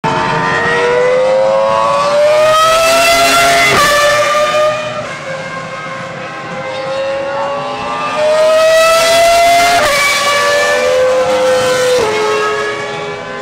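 Ferrari Formula 1 car's engine at high revs, a high shrieking note that climbs in pitch and drops sharply at gear changes about four and ten seconds in. It then falls away with another drop near the end as the car slows.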